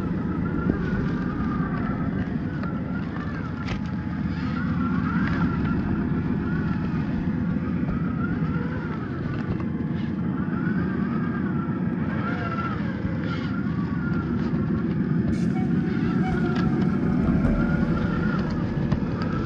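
Traxxas TRX-4 RC crawler's electric motor and gears whining, the pitch rising and falling with the throttle as it crawls through snow, over a steady low rumble, with scattered clicks and knocks.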